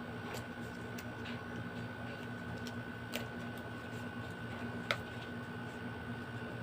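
A few sharp, scattered clicks and taps of hands prying an item loose from the packaging of a new phone box, over a steady faint hum.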